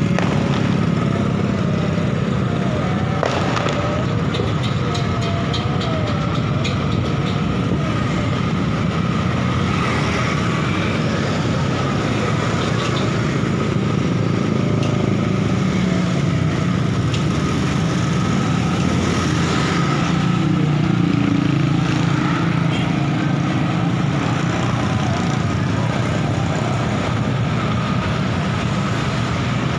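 Steady traffic rumble from motorbike and car engines and tyres on a busy street, heard while moving along with the traffic. A few faint clicks come in the first several seconds.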